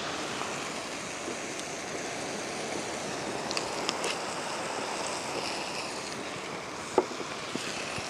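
Small waves washing steadily onto a sand beach, with wind on the microphone. A few light ticks near the middle and one sharp click about seven seconds in.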